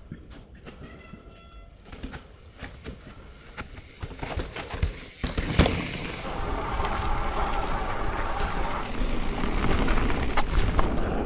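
Mountain bike being ridden down a rocky dirt trail: tyres rumbling over the ground and the bike rattling. Quieter for the first five seconds, then louder with a sharp knock about five and a half seconds in, after which the rumble stays louder.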